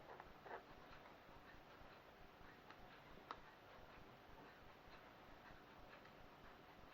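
Near silence: room tone with a few faint, short clicks, the clearest about half a second in and about three seconds in.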